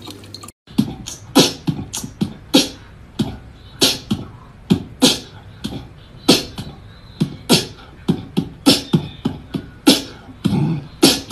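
Beatboxing: a rapid, steady beat of sharp vocal-percussion hits, several a second, with short voiced sounds between them, starting about half a second in after a brief trickle of tap water.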